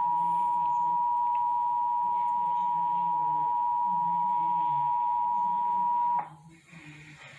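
Emergency Alert System attention signal: one steady, loud electronic tone held for several seconds, cutting off suddenly about six seconds in. It marks the start of an emergency alert broadcast.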